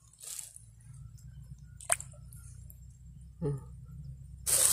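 Quiet wet handling of a small fish over pond water: soft squishy sounds and a sharp slap about two seconds in, then a louder rush of noise just before the end.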